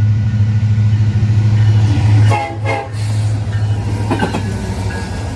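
Heavy diesel freight locomotive, Union Pacific heritage unit UP 1989 (an EMD SD70ACe), running by with a steady low engine rumble. Its air horn sounds in short blasts a little over two seconds in and briefly again about four seconds in.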